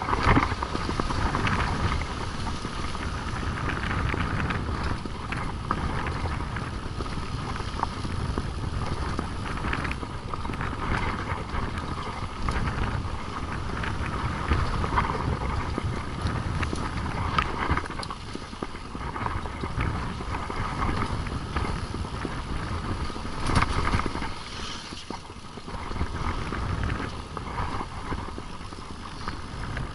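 Mountain bikes riding fast down a dirt trail: tyres rolling on dirt and the bikes rattling and knocking over bumps.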